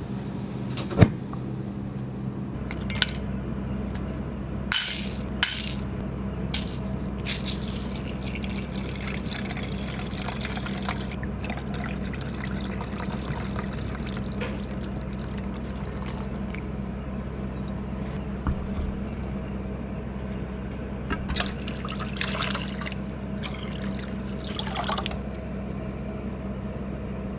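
White wine poured into a stainless steel bowl of pickling liquid, with a few sharp clinks and knocks of cookware, over a steady low hum.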